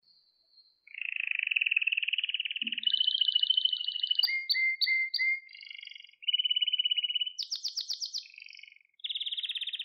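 Male domestic canary singing: a long run of rapid trills and strings of short, falling whistled notes, starting after a brief pause of about a second.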